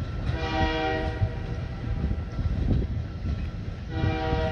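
Diesel locomotive air horn sounding two short blasts, the first about a second long near the start and the second near the end, over a low rumble. Two short blasts are the railroad signal to release brakes and proceed.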